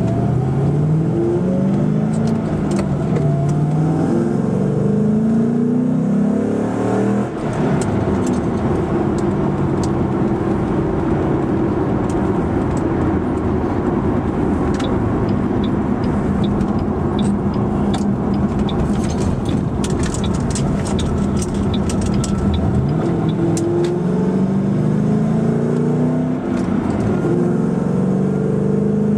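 Ford Mustang (S197) engine heard from inside the cabin while driving: its note rises under acceleration, breaks briefly about seven seconds in at a gear change, holds steady while cruising, and rises again near the end.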